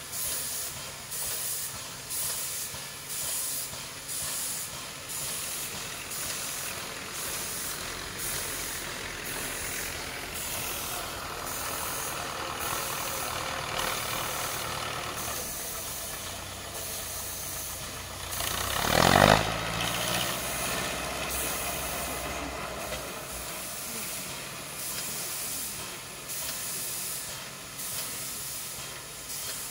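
Steam locomotive venting steam: hissing puffs about once a second, settling into a steady hiss. About two-thirds of the way through, one loud tone sweeps steeply down in pitch.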